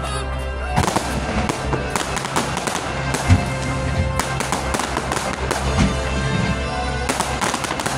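Fireworks going off in a rapid series of bangs and crackles over loud show music, with one sharper bang about three seconds in.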